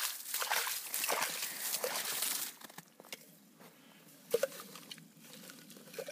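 A metal scoop scrapes and sloshes slush and broken ice out of a hole in lake ice. The scraping stops about two and a half seconds in. After that a kettle is lowered into the hole's water, with faint sloshing and a couple of light clinks.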